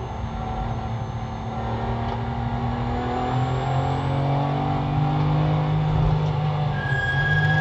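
Porsche GT3's naturally aspirated flat-six race engine under full throttle, heard from inside the cockpit, its pitch rising as the revs climb from about 4,400 to over 6,000 rpm while accelerating out of a corner. A steady high tone joins near the end.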